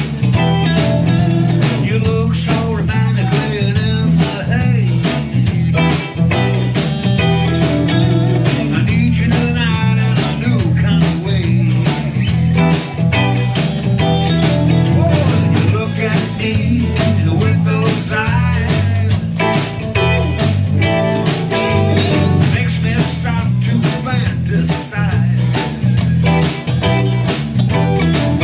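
A live rock band playing: two electric guitars, an electric bass and a drum kit keeping a steady beat.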